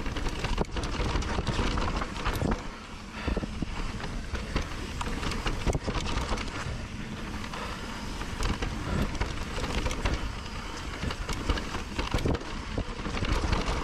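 Trek Rail 7 electric mountain bike rolling fast over a dirt and gravel trail, with tyre noise and many sharp knocks and rattles as it hits bumps, and wind rumble on the handlebar-mounted camera.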